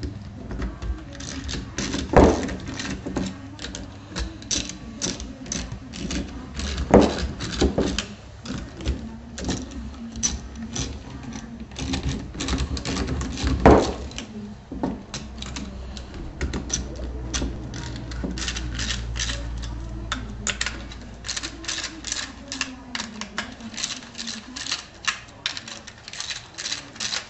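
Socket ratchet clicking in quick runs as the lock nuts on the tap bolts of an 11-plate HHO dry cell are tightened down, with three louder knocks along the way.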